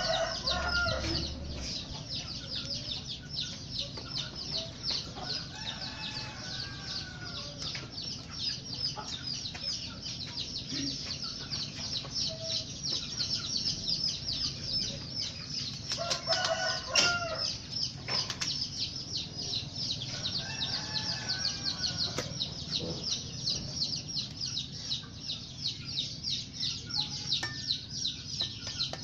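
Chickens clucking, with roosters crowing about six seconds in and again around twenty seconds, and a louder call near the middle, over a constant rapid high-pitched chirring.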